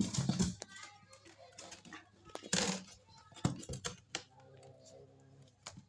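Irregular clicks, taps and short rustling bursts, like objects being handled or tapped, followed near the end by a faint low drone lasting about a second.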